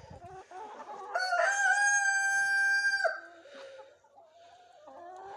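Rooster crowing once, a long, drawn-out crow of about two seconds held on one steady pitch, with hens clucking quietly afterwards.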